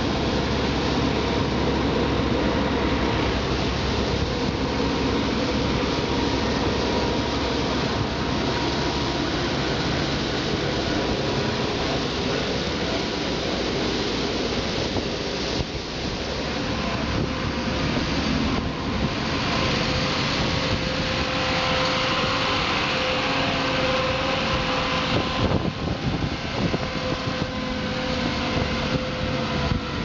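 Street-sweeper truck working along the road, its brushes and suction fan giving a steady mechanical rushing noise with a faint held whine.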